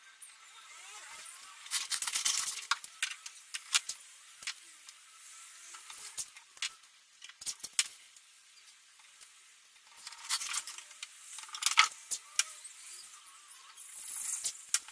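Masking tape (FrogTape) being pulled off its roll and pressed down onto a wooden sideboard: short crackling peels and sharp clicks in a few clusters, about two seconds in, again around ten to twelve seconds, and near the end, with quiet between.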